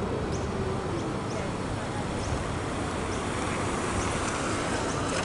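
Steady jet noise from an Airbus A350's twin Rolls-Royce Trent XWB turbofans passing overhead, swelling slightly toward the end. Faint short high chirps recur every second or so.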